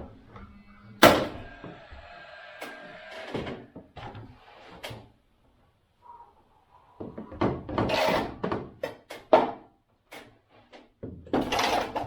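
A sharp knock about a second in that rings on for a couple of seconds, then bouts of knocking, rubbing and clattering in the middle and near the end: work noise from fitting PVC soffit boards into place overhead.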